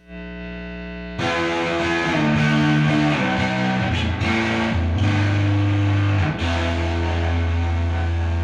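Electric guitar played through a restored late-1966 Fender Bassman tube amplifier turned all the way up, with distortion. A held note jumps to louder chords and single notes about a second in, and near the end a long low note rings on. It is the sound of a healthy, fully restored amp with a lot more power and gain.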